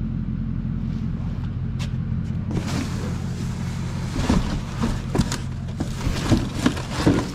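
A vehicle engine idling steadily. From about two and a half seconds in there is rummaging and rustling, with several knocks of objects being handled.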